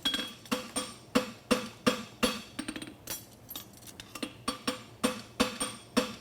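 Farrier's hammer striking a hot steel bar shoe on an anvil in steady blows, about three a second, each with a short metallic ring. The blows thin out briefly around the middle, as the shoe's corners and heel are worked down after a welding heat.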